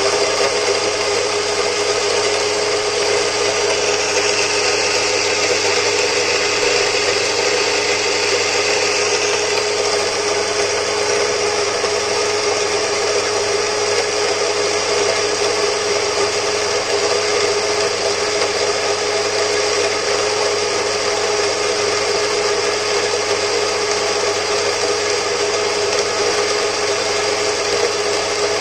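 DIY 3D-printed espresso grinder with Mazzer 64 mm flat burrs running, its motor humming steadily as the burrs grind coffee beans and the grounds pour into the catch bin. A higher grinding hiss eases about ten seconds in.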